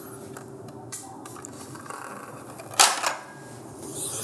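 Quiet room tone with a few faint light clicks, then a short sharp burst of breath through the nose a little under three seconds in.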